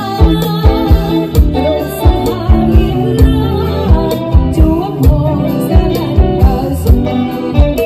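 Loud live Khmer band music: a singer over a fast, steady drum beat.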